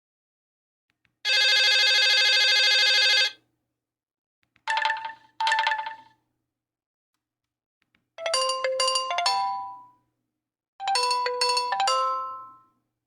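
Nokia 8000 4G default ringtones playing one after another with silent gaps between them. First comes a steady buzzy tone of about two seconds, then two short chime notes, then a short phrase of quick ringing notes played twice.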